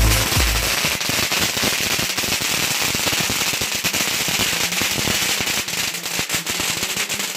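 Fireworks crackling: a dense, fast run of sharp pops and crackles from ground fountain fireworks, thinning out near the end.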